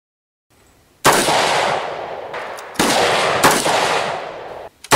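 Rifle gunshots on a covered firing line: three shots, about a second in, near three seconds and half a second later, each with a long echoing decay, and a fourth right at the end.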